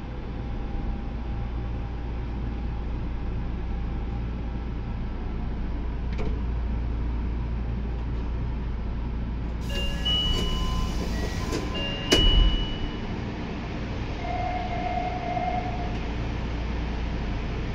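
Meijo Line 2000 series subway train running through a tunnel, heard inside the car as a steady low rumble. Several brief steady tones sound about ten seconds in, with a single sharp clack, the loudest moment, just after twelve seconds. Another short steady tone follows near fifteen seconds.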